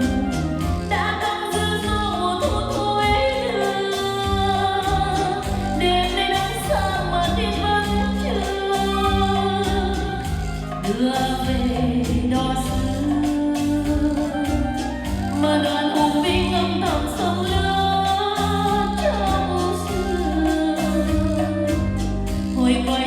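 Music: a Vietnamese ballad with a steady bass beat, long held melody notes and singing.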